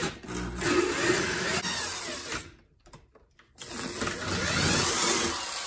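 DeWalt electric drill boring a 19 mm hole into a wooden board, the motor's pitch shifting as the bit cuts. It stops for about a second midway, then runs on.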